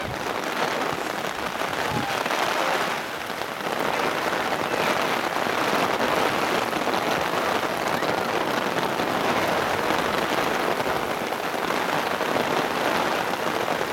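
Heavy rain falling in a downpour: a steady, even hiss.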